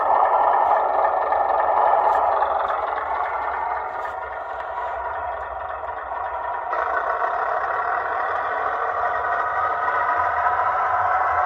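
Model GWR diesel railcar's sound decoder playing a diesel engine running sound through its small onboard speaker as the model moves along the track. The engine note changes abruptly about seven seconds in.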